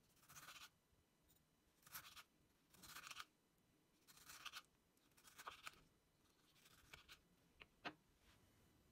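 Kitchen knife slicing through a ripe tomato on a wooden cutting board: about six slow strokes, each a short soft scrape, roughly a second apart. Near the end come two sharp taps as the knife is laid down on the board.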